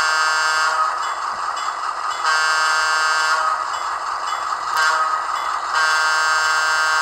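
HO scale EMD SW7 model locomotive's DCC sound decoder sounding its diesel horn through the model's small speaker: three blasts of about a second each, over a steady hiss.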